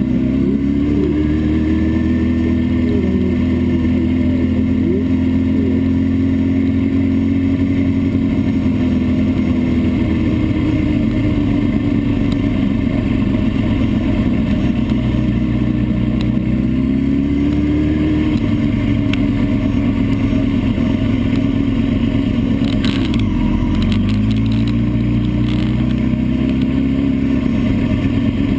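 A vehicle's engine heard from on board at speed on a race track, its pitch holding, dropping off and climbing again several times as it brakes and accelerates through the corners. A few brief clattering sounds come a little past halfway.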